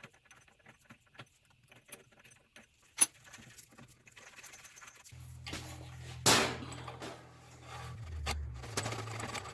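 Light metallic clinks and handling of metal tools and parts, with a sharp click about three seconds in. About five seconds in a low, steady electric-motor hum starts, with a loud knock a second later and clatter over the hum.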